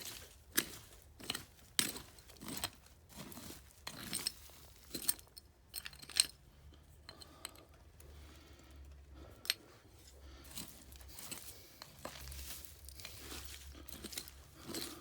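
Soil and rubble being scraped and dug through by hand with a piece of tile: a run of irregular scratchy scrapes and gritty crunches, thinning out in the middle and picking up again near the end.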